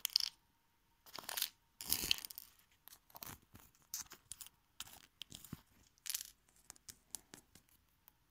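Small plastic toy figures and props being handled and set down on a wooden tabletop: irregular light clicks, taps and rustling scrapes.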